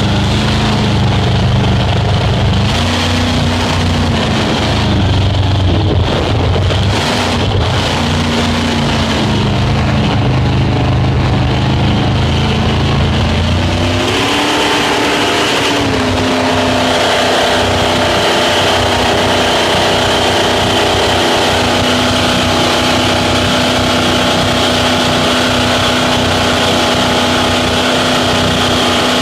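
Speedboat engine running under a steady rushing noise. Its pitch wavers up and down at first, then rises about halfway through and holds steady as the boat runs at higher speed.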